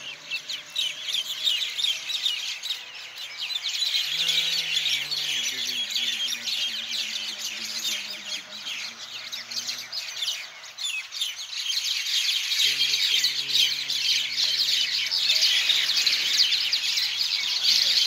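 A large flock of common mynas chattering in a roost tree at night, a dense, unbroken mass of calls. Faint low held notes from a distant voice come through twice beneath it.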